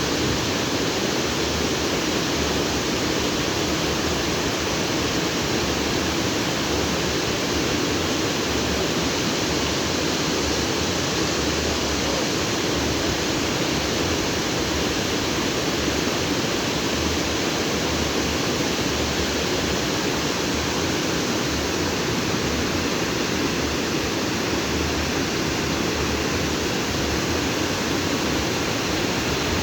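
Stream water flowing steadily over and between rocks, a constant full rushing with no changes.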